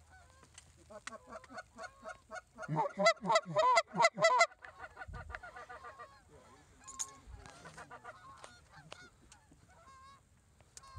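Canada goose calling: short honks and clucks come faintly at first, then in a fast, loud run from about three to four and a half seconds in, then fainter scattered calls after it.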